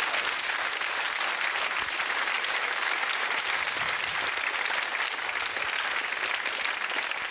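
Studio audience applauding steadily, a dense, even clapping that holds throughout.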